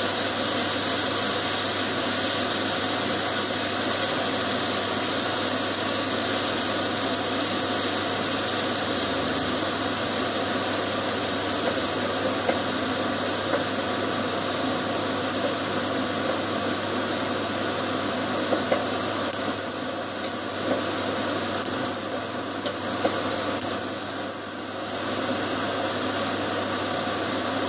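Beef frying in a pan on a gas stove: a steady sizzle and hiss over a low hum, easing off briefly near the end, with a few light clicks of the pan or utensils.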